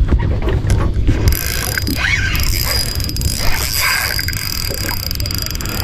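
Spinning reel running under load from a big hooked fish, with a rapid ticking and a thin steady whine from its mechanism over a low rumble.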